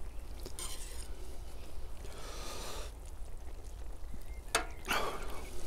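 Faint scraping and rustling of a metal skimmer and a gloved hand working cooked plov rice in a cast-iron kazan, with a couple of sharper scrapes near the end.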